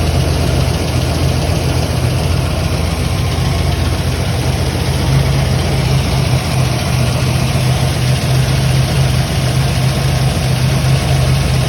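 Car engine idling steadily, an engine with a misfire.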